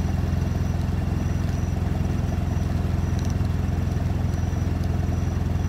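Off-road 4x4's engine running steadily at an even speed, a constant low rumble with no revving.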